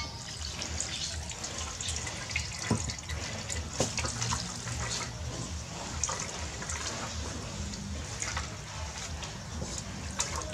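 Hands squeezing water-soaked grated coconut in a plastic colander, wet squelching as coconut milk trickles and drips through into the pot below, with scattered sharp little clicks.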